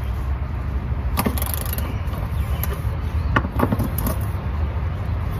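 A few sharp metallic clicks and clinks of a ratchet and 12 mm socket being fitted to and working the transmission mount brace bolts, once about a second in and several between three and four seconds in, over a steady low background rumble.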